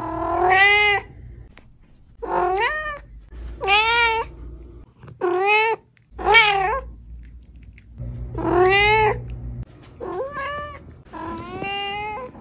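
A cat meowing over and over, about eight separate meows, each under a second long and rising then falling in pitch.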